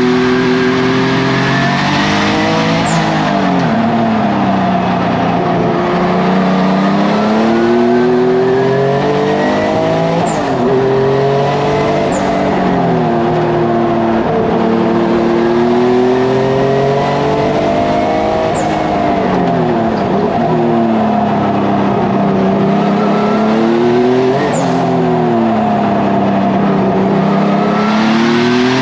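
Porsche 993 race car's air-cooled flat-six at full effort on track, heard from inside the cockpit. The revs climb and fall over and over as the car accelerates, brakes and changes gear, with several sharp drops in pitch at the shifts.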